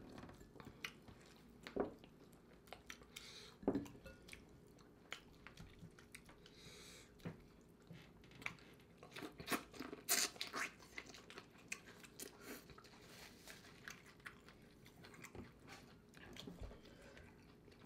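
Close-miked eating of a vegan boil: chewing, with wet handling of sauce-covered corn on the cob and food in glass bowls, heard as irregular short clicks and smacks, the loudest about ten seconds in.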